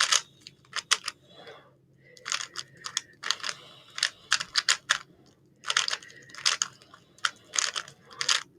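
Plastic 3x3 Rubik's cube turned fast during a speedsolve: its layers click and clack in quick runs of turns, broken by short pauses twice.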